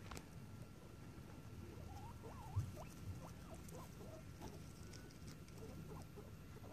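Guinea pigs squeaking softly, a run of short squeaks that bend up and down in pitch starting about two seconds in, over low rustling. A single soft thump about two and a half seconds in.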